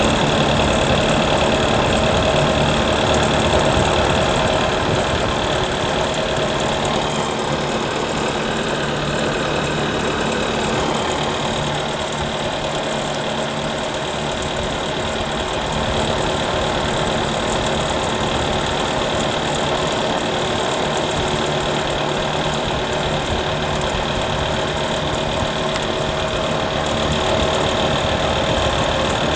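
The fan of a 2000 Fahrenheat 1500-watt electric space heater running in fan-only mode with the heat strips off, still coming up to full speed: a steady rush of air over a low motor hum.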